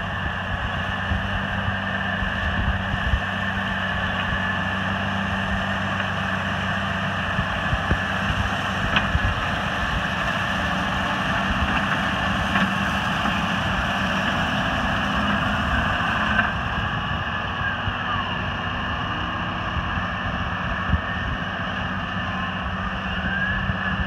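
New Holland T7.270 tractor working in the field, pulling a Kuhn power-harrow combination drill; its six-cylinder diesel engine runs steadily under load, a low engine drone with a steady higher whirr above it.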